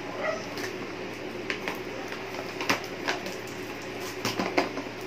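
Paper gift bag crinkling and rustling as it is pulled open and rummaged in, with irregular sharp crackles.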